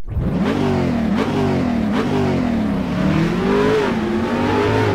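Car engine accelerating hard through the gears. Its pitch climbs and drops back sharply at each of several shifts, then climbs more slowly near the end.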